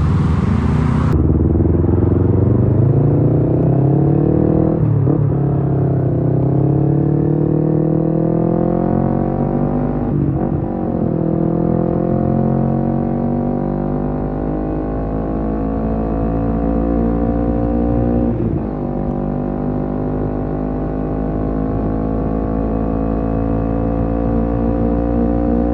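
Kawasaki Z250 motorcycle engine through a SeaPro aftermarket muffler, accelerating away through the gears. The pitch climbs steadily, dips at upshifts about 5, 10 and 18 seconds in, then rises slowly in the higher gear.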